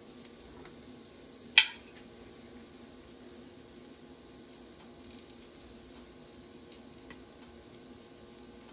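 Faint steady sizzle of a ramen and vegetable stir-fry in a pan on the stove, with one sharp clack about a second and a half in and a light clink near the end.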